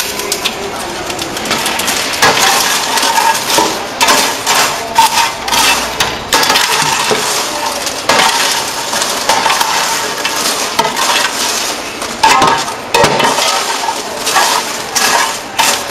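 Popped popcorn being scooped and pushed around with a paper bag on a popcorn machine's stainless-steel tray: dry rustling and crunching, with the paper scraping on the metal, in uneven bursts.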